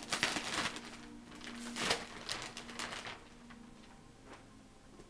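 Gift-wrapping paper tearing and crinkling as a present is unwrapped: several quick rips in the first three seconds, the loudest near two seconds in, then quieter rustling.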